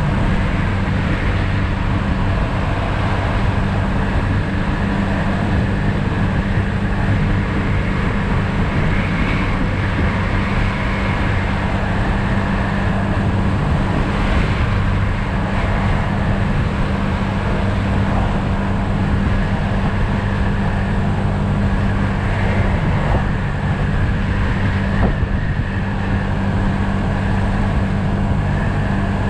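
2020 Yamaha SMax scooter's 155 cc single-cylinder engine running steadily at cruising speed, with road noise.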